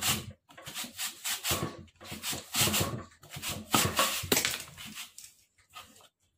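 Raw taro being shredded on a plastic julienne grater: repeated scraping strokes of the tuber across the metal blades, about two a second, dying away about five seconds in.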